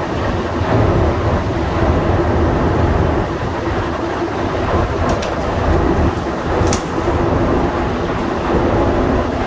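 Rubber-tyred Montreal Metro train running through a tunnel, heard from on board: a loud, steady rumble with a held hum, and a few sharp clicks about five and seven seconds in.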